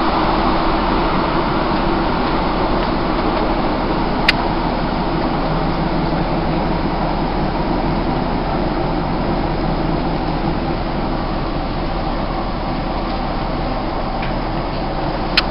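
Steady running noise heard inside a Class 156 diesel multiple unit moving at speed, with a short sharp click about four seconds in and another near the end.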